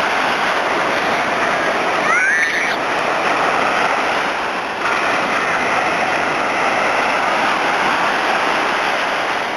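Ocean surf breaking and washing up the beach: a steady, loud rush of waves.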